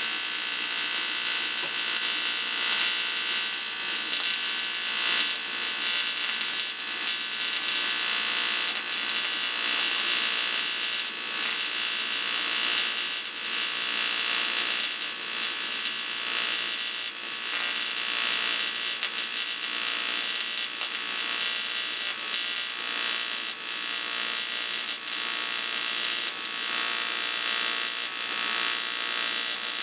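TIG welding arc on aluminium, run on AC: an unbroken, steady electric buzz as the weld is laid.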